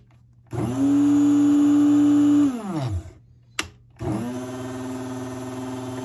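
Krups Silent Vortex blade coffee grinder's motor whirring up, running steadily and winding down twice, with a click between the runs. The first run is much louder and a little higher in pitch than the second, as the grinder is switched between its high and low settings.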